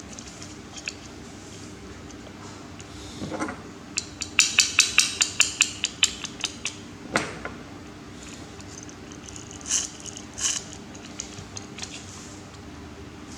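Small hard parts clicking and clinking as they are handled, in a quick run of about four or five clicks a second for two or three seconds in the middle, with a brief scrape before and after. A few more separate clicks follow later.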